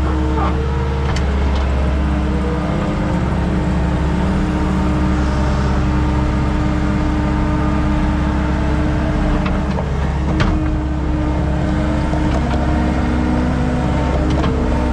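Skid steer's diesel engine running steadily under load while grading, with a faint clank now and then and one sharper knock about ten seconds in.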